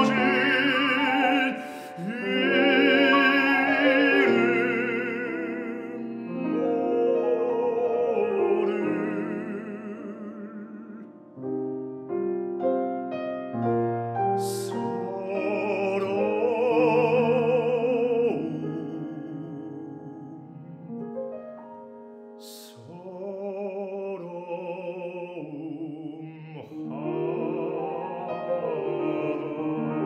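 A baritone singing a Korean art song in operatic style with piano accompaniment, holding long notes with a wide vibrato.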